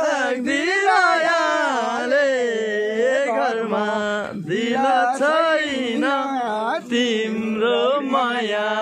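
A devotional-style song: a solo voice sings a slow melody with wavering, ornamented pitch over a steady held drone note.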